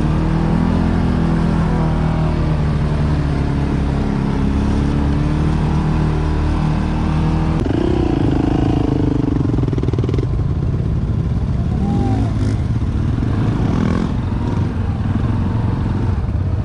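ATV engine running under load, its revs rising and falling several times.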